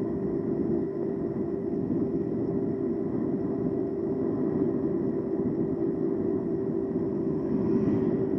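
E-bike riding at a steady speed: a constant whining hum over rough wind and road noise on the camera's microphone, with no change in pitch.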